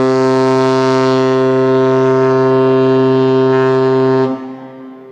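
MS Oosterdam's ship horn sounding one long, steady, deep blast that cuts off about four seconds in, with a fainter tail dying away after it.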